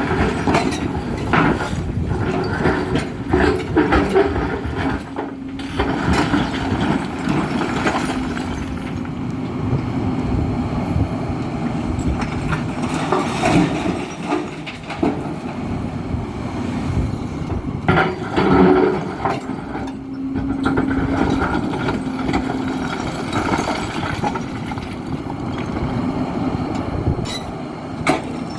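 Hidromek 310LC H4 33-ton excavator working under load, its engine running steadily while the bucket digs and loads blasted rock, with repeated knocks and clatter of rock striking steel. A steady hydraulic tone is held twice, for a couple of seconds each.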